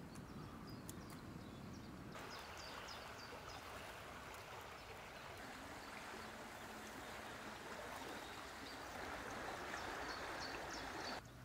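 Steady rush of flowing river water, with runs of short, high bird chirps now and then.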